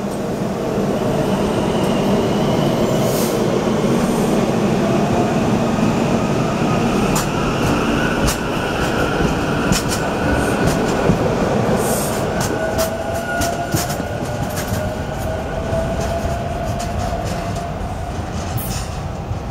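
SEPTA Silverliner V electric multiple-unit train pulling out and accelerating past, its traction motors giving a whine that climbs in pitch over the rumble of wheels on rail. Sharp clicks come at intervals. The sound fades as the last car draws away near the end.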